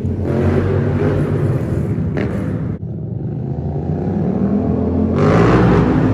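Vehicle engine and exhaust running with a low rumble. The note dips sharply about three seconds in, then surges louder about five seconds in, as if revved.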